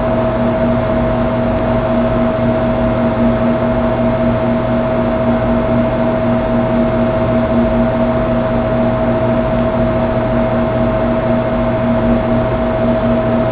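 A steady machine-like hum with hiss: a constant whine over a lower tone that flutters quickly.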